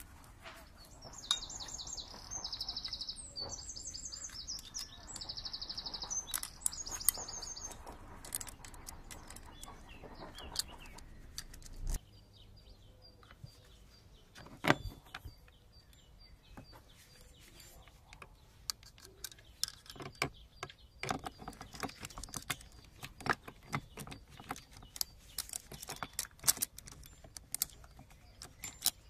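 Small birds chirp and sing for the first several seconds. Then come scattered metallic clicks, clinks and knocks as the chainsaw's chain and guide bar are handled and fitted onto the saw, with one louder knock about halfway through.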